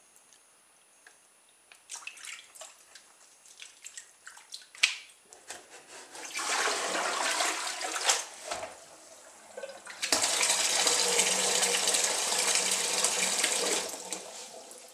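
Plastic washing-up bowl handled and tipped in a stainless steel sink, with a few knocks and splashes, then soapy water pouring out of it for a couple of seconds. A kitchen tap then runs fresh water into the bowl for about four seconds before tailing off near the end. The bowl is being swilled out because the soap has spread over the whole water surface.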